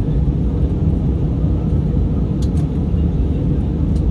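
Steady low rumble of airliner cabin noise in flight: engine and airflow noise heard from inside the cabin. A couple of faint short ticks come about two and a half seconds in and near the end.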